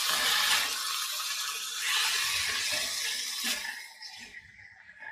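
Boneless chicken pieces sizzling in hot oil in a nonstick frying pan while a silicone spatula stirs and scrapes them. The sizzle dies down about four seconds in.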